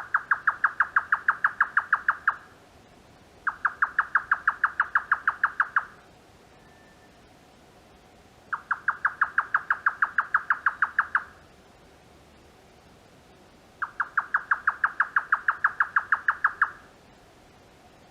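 Grey nightjar giving its typical 'kyo-kyo-kyo' chopping-cucumber call: four runs of rapid, evenly spaced notes at about seven a second, each lasting about two and a half seconds, with pauses of a few seconds between them.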